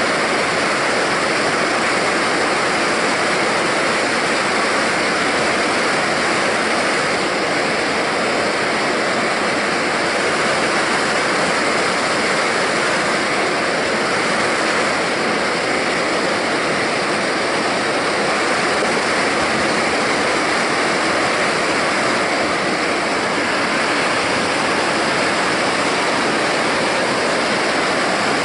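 Whitewater pouring over a stone river weir: a steady, unbroken rush of falling water.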